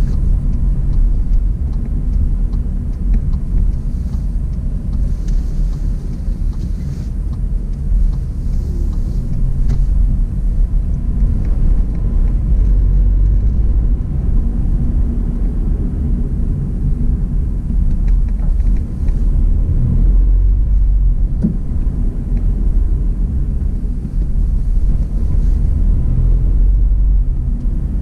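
Car driving at low speed, its engine and tyre rumble heard from inside the cabin: a steady low drone that swells and eases slightly over time.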